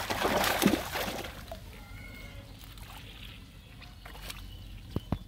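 Fish thrashing and splashing in shallow water inside a cast net as it is drawn ashore, loudest in the first second or so, then settling to quieter sloshing. Two sharp knocks near the end.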